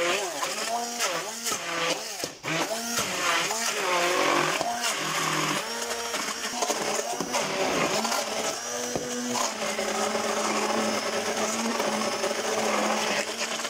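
Hand-held electric stick blender pureeing boiled potatoes into mash. Its motor pitch keeps rising and falling as the blade works through the chunks, then settles into a steadier hum in the second half as the potato turns smooth.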